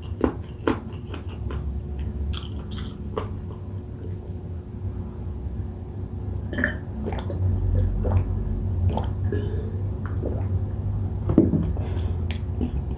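A person chewing food close to the microphone, with scattered lip smacks and small clicks over a low steady hum.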